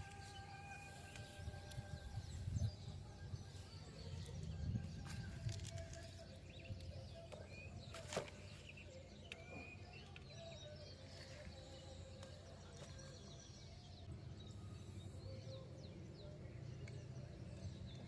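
Outdoor ambience of birds chirping and calling, many short calls and whistles scattered throughout, over a low rumble, with one sharp click about eight seconds in.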